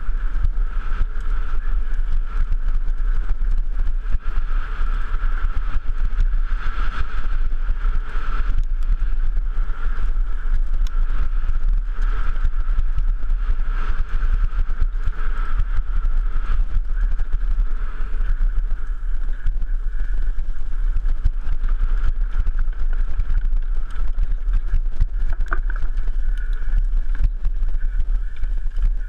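A mountain bike riding fast down a rocky, stony trail, heard from a helmet-mounted camera: a constant low wind rumble on the microphone, tyres crunching and the bike rattling over loose stones and rock slabs, with a steady high buzz throughout.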